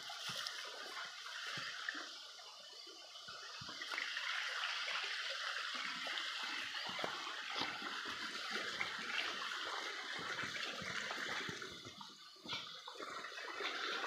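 Steady rushing of a small stream, dipping briefly twice, with scattered footsteps crunching on dry leaves.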